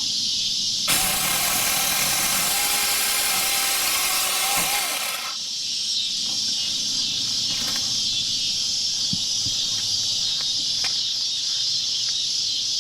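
Battery-powered Tingmengte 6-inch mini chainsaw starting about a second in and running for about four seconds with a steady motor whine as it cuts into a branch, then stopping. Cicadas buzz loudly throughout.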